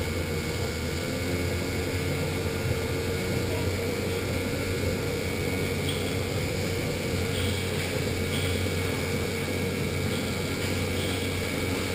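Electric go-kart driving at speed: a steady motor hum with a thin high whine, mixed with tyre and chassis noise.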